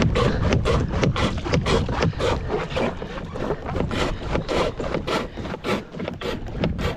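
Kayak being paddled: water splashes and slaps in quick irregular strokes, about two to three a second, over a low rumble.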